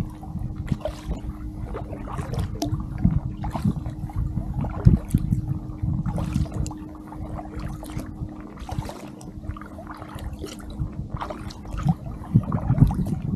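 Kayak paddling: the paddle blades dipping and splashing in lake water, with drips and water lapping against the hull, heard close from a camera mounted on the kayak's deck. A low rumble runs underneath, and a faint steady hum is present through roughly the first half.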